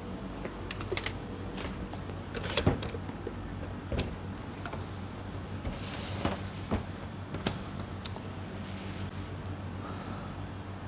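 Scattered light knocks and clicks, about eight spread irregularly, as kitchen utensils and baking things are handled on a work surface, over a steady low electrical hum.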